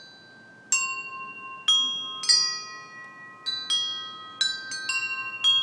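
Wind chimes ringing: about nine irregularly spaced strikes of clear, high pitches, each ringing on and overlapping the next.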